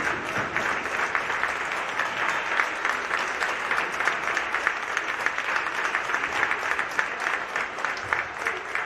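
Crowd applause: many hands clapping steadily, tailing off slightly near the end.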